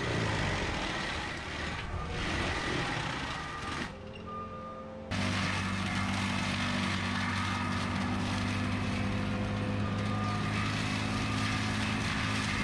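Tracked skid-steer with a forestry mulching head clearing brush: its diesel engine running with a steady drone. The sound changes abruptly about five seconds in and then holds steady.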